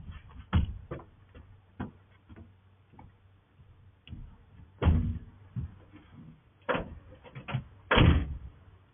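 Irregular knocks and thumps, a dozen or so, the loudest about five and eight seconds in, heard through a doorbell camera's microphone.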